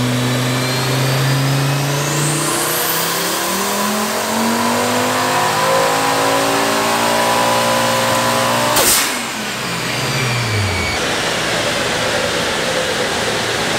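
Turbocharged VW 07K 2.5-litre five-cylinder engine with a Garrett G25-660 turbo making a full-throttle dyno pull: its pitch climbs steadily for about nine seconds, with a high turbo whistle sweeping upward early in the pull. Then a sharp burst of noise as the throttle shuts, and the engine winds down to idle.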